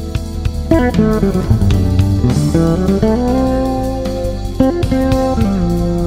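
Fretless electric bass playing a melodic solo high up the neck, with long held notes that slide between pitches and carry vibrato.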